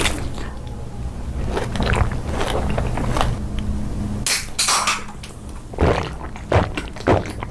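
Close-miked eating sounds: biting and chewing, with several short, sharp crackles in the second half, over a steady low hum.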